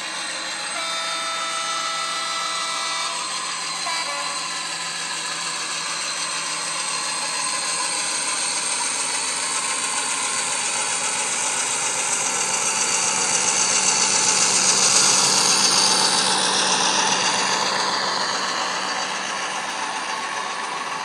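Sound decoder of a Cavalex OO-gauge Class 56 model locomotive playing Class 56 diesel engine sound through its onboard speaker, together with the running noise of the model and its wagons on the track. A steady tone is held for about two seconds near the start, and the sound grows louder as the train passes closest a little past halfway, then fades.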